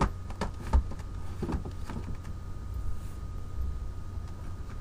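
A few knocks and handling noises as objects are reached for and moved about on a shelf, the loudest just under a second in, over a steady low hum.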